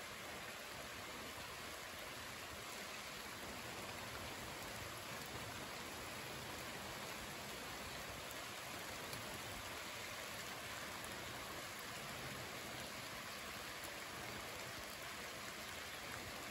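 Steady rain falling on leafy trees and grass, an even hiss with faint, scattered drop ticks.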